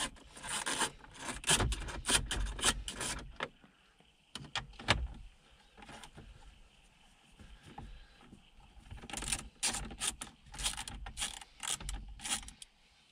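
Clicks, rattles and short scrapes of a 10 mm socket tool working loose the bolts and screws that hold a car's factory head unit in the dash. They come in irregular clusters: a busy spell at the start, a short one a few seconds in, and another near the end.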